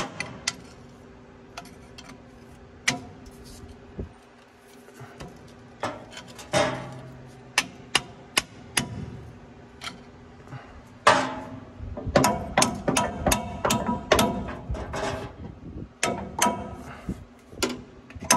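Steel parts being knocked and clinked with hand tools while a cut bearing race is worked off a combine's rotor sheave shaft. A few scattered sharp taps come first, then from about halfway a busier run of knocks and clinks with brief metallic ringing.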